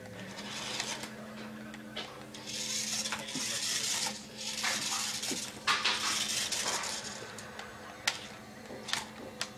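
Toy RC car driving on carpet: its small electric motor whirs in two main bursts, with a few sharp clicks and rattles.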